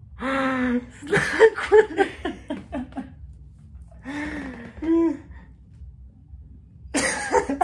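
A person laughing and making wordless vocal sounds in several bursts: a drawn-out sound at the start, a run of short laughs, another drawn-out sound midway, and a last burst near the end.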